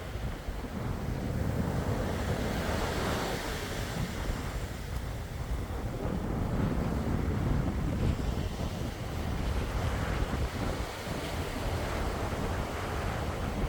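Sea waves washing in and receding, swelling in loudness every few seconds, with wind buffeting the microphone.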